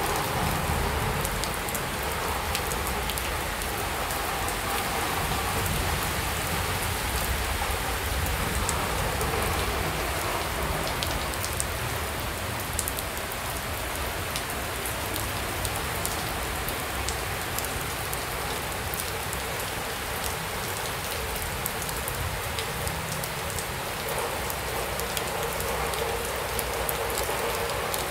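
A sudden downpour of rain falling steadily, a constant wash of noise with scattered sharp ticks of individual drops.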